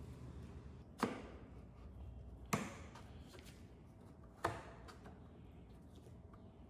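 Three sharp clacks, one to two seconds apart, each with a short ringing tail, as blue one-handed bar clamps are set and tightened around a wooden drawer box on the workbench.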